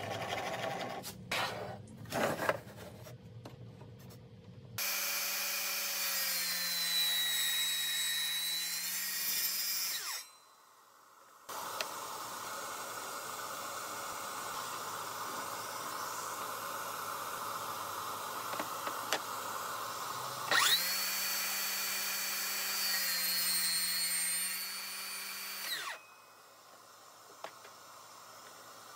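Table saw cutting notches in a wooden block: the blade's whine dips in pitch as it bites into the wood, in two separate passes, with a steady hiss between them. The cutting follows a few short knocks of the wood being handled.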